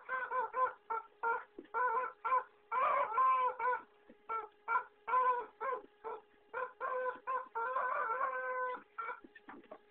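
Rubber chicken squeak toy squawking again and again as a dog bites and squeezes it: many short honks, with longer drawn-out squawks about three seconds in and again near the end.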